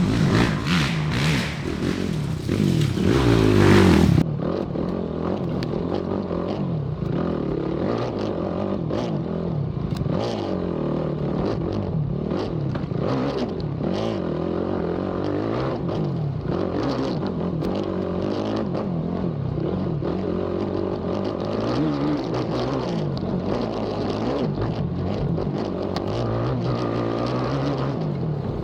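Race ATV engine revving up and down continuously as the quad is ridden hard over a rough cross-country track, with clattering knocks from the machine over the terrain. A loud rushing noise covers the first four seconds and stops suddenly.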